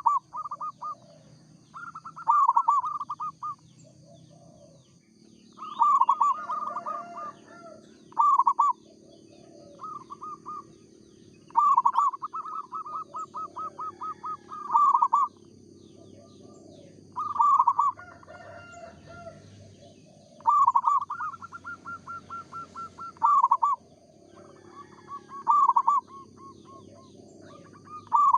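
Zebra doves (perkutut) cooing: short, rapidly pulsed coo phrases repeated about every two to three seconds, some longer and drawn out, with a steady faint high-pitched whine underneath.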